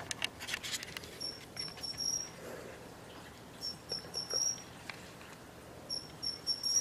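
Matsumushi (pine cricket) singing its chirping "chin-chirorin" phrase three times, each a quick run of high notes with the last note held longest. A brief patch of crackling clicks comes at the start.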